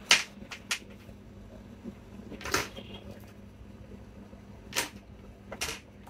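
Handling noise from a Fujitsu Lifebook laptop motherboard being flipped over and laid flat on a wooden workbench: a sharp knock right at the start, then a few softer clicks and scrapes scattered through.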